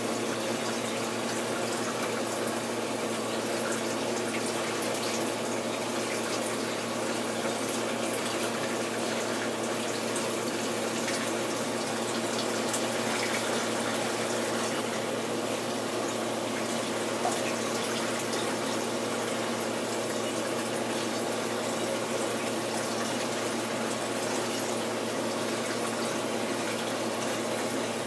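Steady rush of water from an aquarium's circulation, a pump or filter keeping the water moving, with a steady hum running under it.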